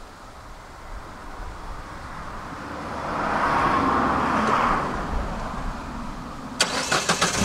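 A rushing noise swells and fades over a few seconds. Near the end, the Citroën C4's 1.6 VTi petrol four-cylinder is cranked by the starter in a quick run of uneven clicks and catches.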